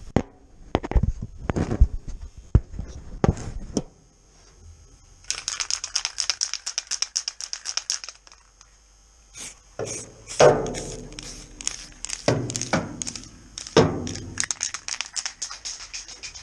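Knocks and clatter as the camera is handled and set down on the car's steel body panel, then two long runs of fast rattling clicks with a few heavier knocks among them.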